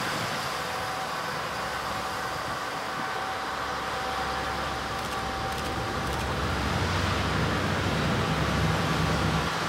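Diesel engines of a Kiha 58-series railcar train running under power as it pulls along the platform. The sound grows louder as the train draws near, with a deeper rumble building in the last few seconds.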